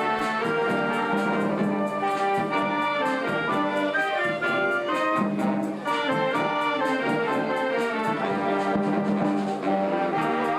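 Brass band music: trumpets and trombones playing a melody over a steady beat.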